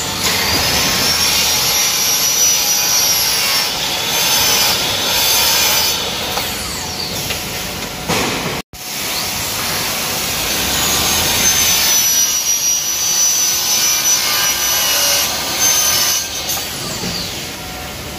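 LS1018L 260 mm sliding compound miter saw running and cutting through PVC pipe, the motor giving a high whine over the rasp of the blade. The sound breaks off abruptly about halfway, then a second cut follows.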